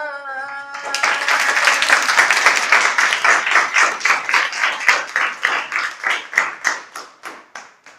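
A boy's singing voice holds the final note of a nasheed, then a group of schoolchildren clap and applaud for about six seconds, the claps thinning out and dying away near the end.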